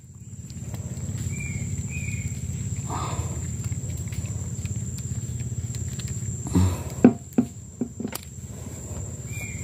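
Swamp-forest insects droning: a steady high-pitched whine over a low pulsing buzz, with a few short chirps. Several sharp clicks and knocks come about seven seconds in, as the giant freshwater prawn is handled in the boat.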